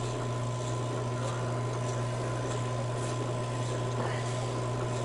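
Steady low electric hum of the working cable-tool drilling rig model's drive motor, with a faint higher whine above it and a few faint ticks from its mechanism.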